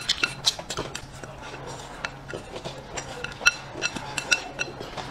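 Chopsticks clicking and scraping against a ceramic bowl, with several sharp, ringing clinks in the second half, mixed with close-up mouth sounds of eating straight from the bowl's rim.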